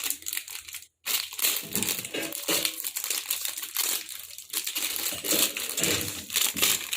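Plastic packaging crinkling and crackling as it is handled and unwrapped, with a short break about a second in.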